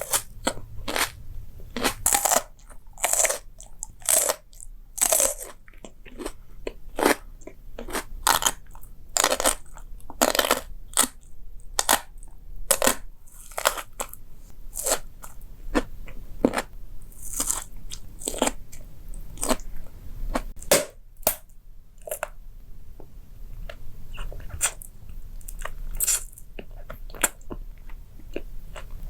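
Close-miked crunchy eating: repeated sharp crunching bites and chews, roughly one a second with short pauses between.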